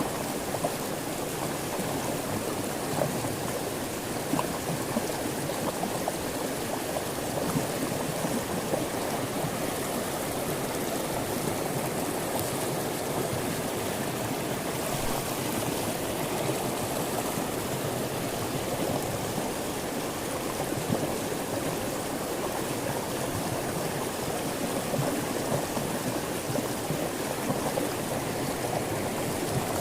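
River water rushing steadily, a constant flowing-water noise.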